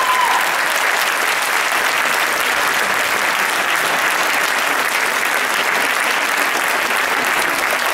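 Audience applauding steadily. The routine's music stops just after the start.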